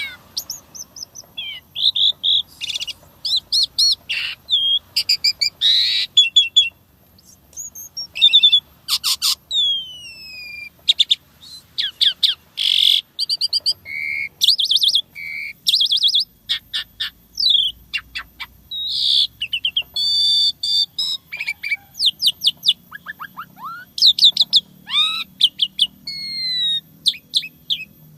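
Asian pied starling (jalak suren) singing a long, varied song of rapid chattering notes, clicks and falling whistles, with short pauses between phrases.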